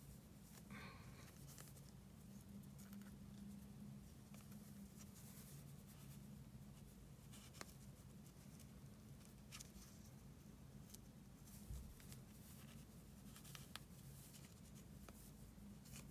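Near silence: faint rustling and small clicks from yarn and a crochet hook being handled while a yarn tail is worked in, over a low steady hum.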